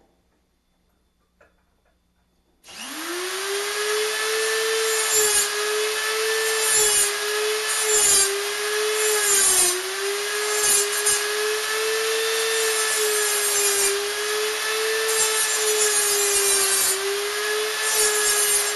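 A small high-speed power tool spins up about three seconds in and runs steadily with a whine that dips slightly under load, with repeated hissy bursts of cutting, as a hole too small for the throttle cable's barrel nut is enlarged.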